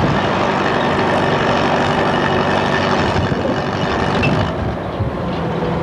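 An engine running steadily, with a low hum under a constant noisy wash and no change in speed.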